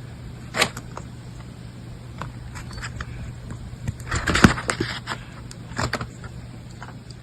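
A series of sharp clicks and rustling handling noises over a steady low hum, with a louder, denser cluster about four to five seconds in.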